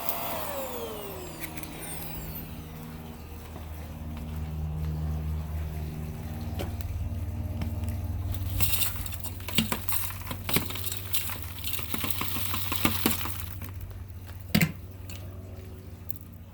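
A vacuum cleaner motor whine falls in pitch and dies away at the start as the machine is switched off. Then comes a low steady hum, with scattered clicking and rattling of dry debris and one sharp knock near the end.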